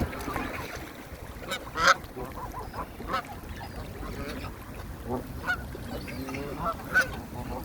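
Waterbirds calling, geese among them: scattered short honks, the loudest about two seconds in and another near the end.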